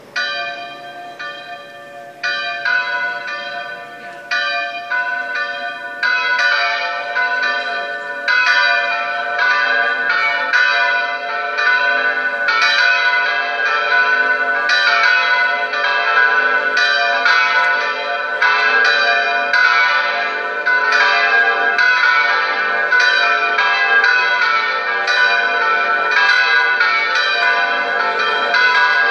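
Electronic church bells played through the tower loudspeaker: a festive 'distesa' peal of four bells tuned D4, B3, A3 and G3, imitating bells swung full circle, the call to Mass half an hour ahead. The strokes start sparse and within the first several seconds build into continuous overlapping ringing.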